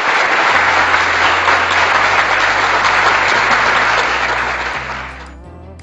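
Loud applause, a crowd clapping, that fades out near the end, over background music with a steady low bass line.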